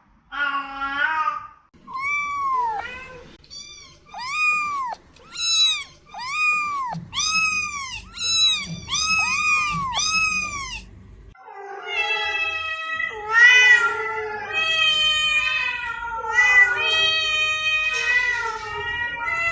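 Domestic cat meowing repeatedly, about one high meow a second, each rising then falling in pitch. About halfway through it gives way to a denser run of overlapping meows.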